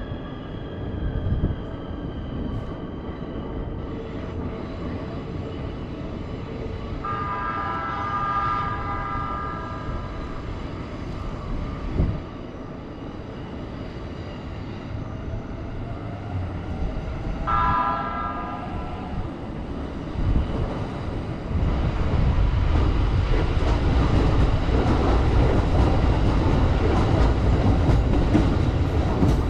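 Keikyu train horn sounding twice, a steady blast of about three seconds some seven seconds in and a shorter one about ten seconds later. A train then passes close by, with loud wheel-on-rail rumble and clatter from about two-thirds of the way through.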